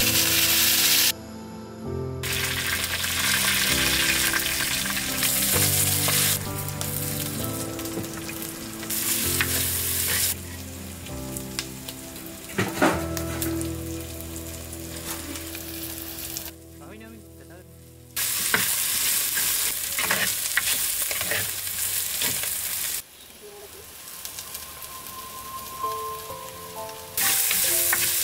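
Spices and curry leaves frying in hot coconut oil in a clay pot, sizzling, with a spoon stirring and scraping against the pot. The loudness jumps abruptly up and down several times.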